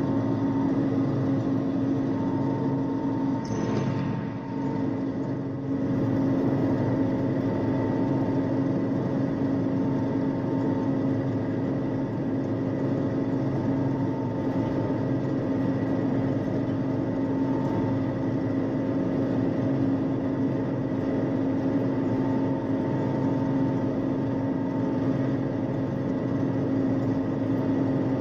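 A 1974 John Deere 6600 combine running while harvesting soybeans, heard from inside the cab: a steady engine and threshing-machinery drone with a strong low hum.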